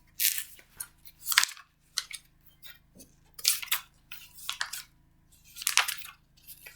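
Irregular rustling, crinkling and clattering as objects are handled and searched through, in short bursts with brief pauses.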